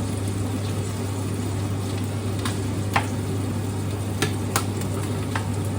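Food sizzling in a pan while being stirred, with a few sharp clicks of the utensil against the pan and a steady low hum underneath.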